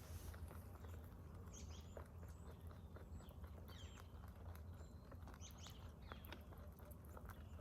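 Rabbits faintly crunching and nibbling feed, a patter of small irregular ticks, with a few faint bird chirps.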